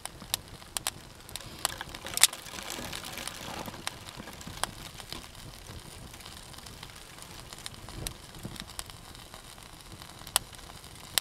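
Small campfire of twigs and pine boughs crackling, with sharp separate pops scattered throughout and a brief rustle of kindling being fed in about two to four seconds in.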